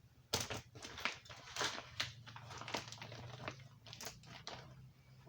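Tape and plastic being handled and pressed into place: irregular crinkling and crackling rustles, over a low steady hum.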